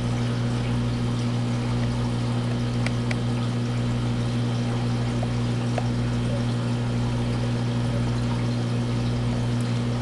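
Aquarium filter running: water steadily pouring and trickling back into the tank over a constant low pump hum.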